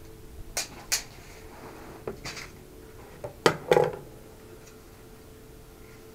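Hand tools handled on a wooden tabletop, a pair of scissors and a tape measure: a few scattered sharp clicks and knocks, the loudest two about three and a half seconds in, then only light handling. A faint steady hum runs underneath.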